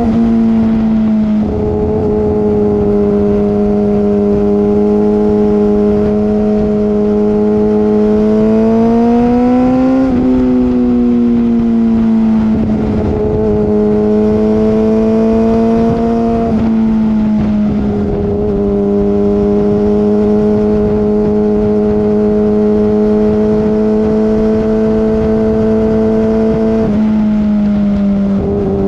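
2013 Yamaha R6's 600cc inline-four engine running through an M4 Street Slayer exhaust with the muffler box deleted. It holds a mostly steady pitch, climbs about ten seconds in and drops back sharply, and steps down in pitch a few more times along the way.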